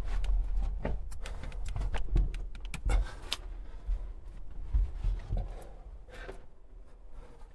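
Irregular knocks, scuffs and rustles of a person clambering through a cramped, muddy mine tunnel, with bumps of handling, busiest in the first half and thinning out toward the end.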